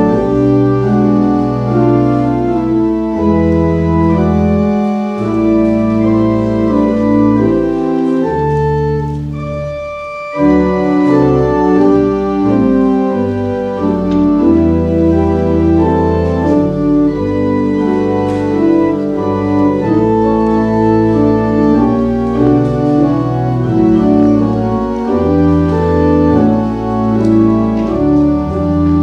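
Church organ playing slow, sustained chords. The music eases off briefly about nine seconds in, then a new chord enters a second or so later.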